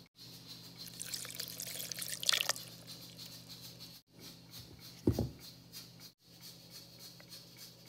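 Water poured into a glass blender jar over tomatoes and tomato paste, a splashing trickle lasting about a second and a half. A few seconds later comes a single short thump as the blender's plastic lid is put on.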